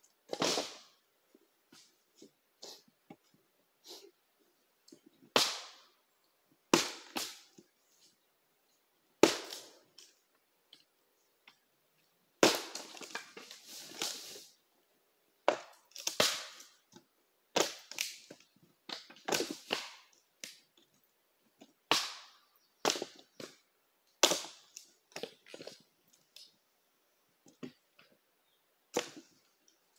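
Axe blows splitting wood: sharp chops every second or two, irregularly spaced, with the crack of the wood tearing apart, longest about twelve to fourteen seconds in.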